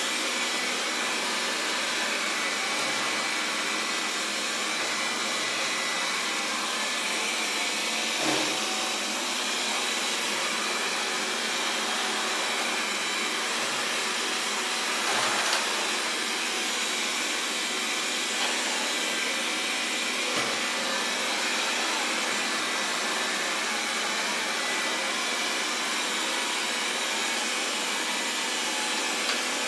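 Xiaomi Mi Robot Vacuum (Mijia) running with a steady fan whirr and a faint high hum, with a few brief knocks along the way.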